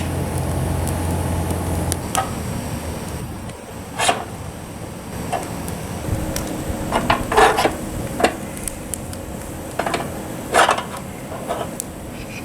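A steady low hum that stops about two seconds in, then a series of separate clanks and knocks of cooking utensils being handled.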